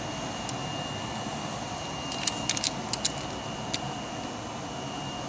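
Light metallic clicks of a wrench working the nut on a nose-gear pivot bolt as it is retorqued to 30 inch-pounds. A quick cluster of clicks comes about two to three seconds in, with single clicks before and after, over a steady faint hum.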